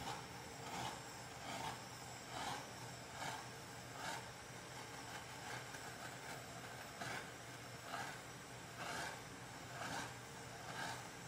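Handheld butane torch hissing, swelling and fading a bit more than once a second as it is swept back and forth over wet poured acrylic paint to bring up cells and pop bubbles.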